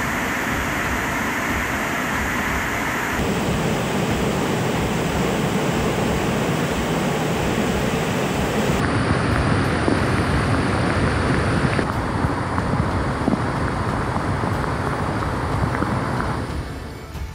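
Loud, steady rush of fast-flowing floodwater, a continuous roar of water noise whose character changes abruptly about three, nine and twelve seconds in as the recording switches between clips.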